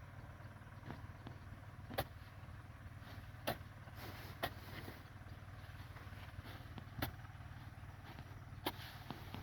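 About half a dozen sharp knocks at irregular intervals, a second or more apart, over a steady low rumble.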